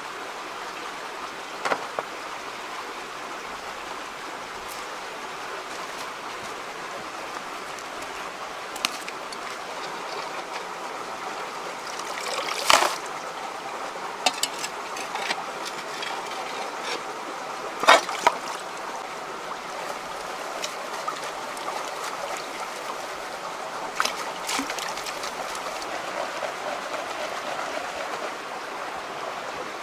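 Shallow mountain stream running over rocks, a steady rushing noise. Over it come a handful of sharp clinks and scrapes of a small metal shovel digging gravel among stones for gold panning, the loudest two about halfway through.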